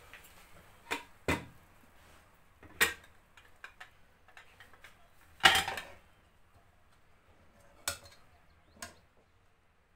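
Metal spoon and cookware knocking: about half a dozen separate clanks and clinks, the loudest about halfway through.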